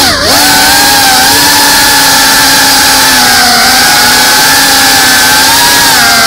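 GEPRC Cinelog 35 cinewhoop's brushless motors and ducted propellers whining, heard from the onboard camera. The pitch dips and climbs back just at the start, then holds steady, dropping slightly near the end.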